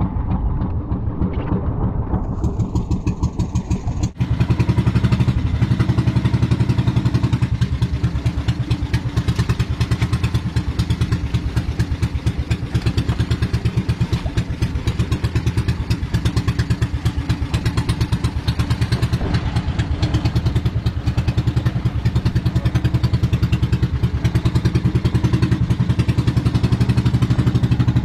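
A small engine running steadily with a fast, even chug. It breaks off sharply about four seconds in and comes back louder.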